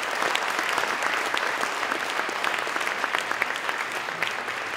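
Audience applauding, a steady dense patter of many hands clapping.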